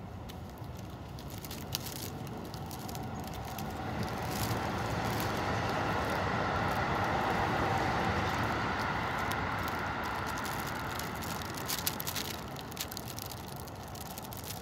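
A passing vehicle: its noise rises gradually to a peak about halfway through, then fades away.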